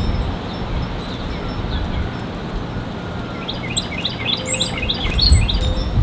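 Wind rumbling on the microphone, with a small songbird singing a quick run of high chirping notes for about two seconds past the middle. Faint wind-chime tones ring underneath.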